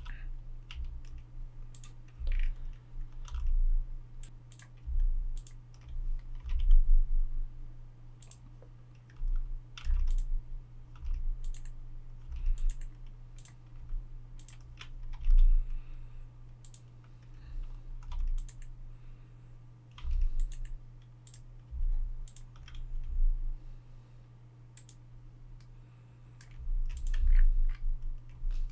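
Computer keyboard keys and mouse buttons clicking in irregular short runs, some strokes with a dull thump, over a steady low hum.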